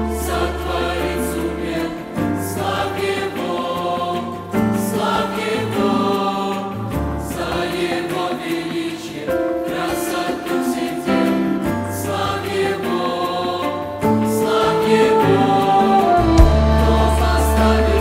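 Mixed youth choir of women's and men's voices singing a Russian hymn in harmony, over deep held bass notes that change every few seconds.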